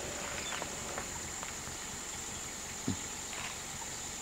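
Quiet forest ambience: a steady high insect drone with a few faint ticks and rustles, and one brief low knock about three seconds in.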